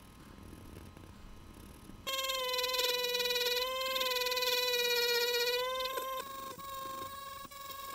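Handheld rotary tool with a felt polishing bit spinning at high speed, a steady high-pitched whine that starts suddenly about two seconds in. It dips in loudness after about six seconds as the bit works against a rusty steel watch part.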